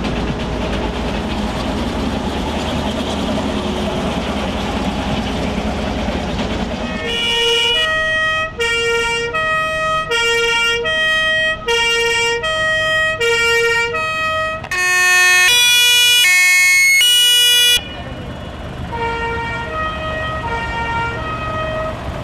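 A combine harvester's diesel engine rumbling as it passes, then a fire engine's German two-tone siren (Martinshorn) alternating between a high and a low note, roughly one switch every second. About halfway through, a louder horn with several notes sounds for about three seconds, and the two-tone siren returns, fainter, near the end.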